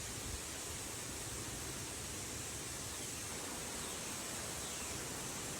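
Steady, even hiss of outdoor background noise, unchanging throughout.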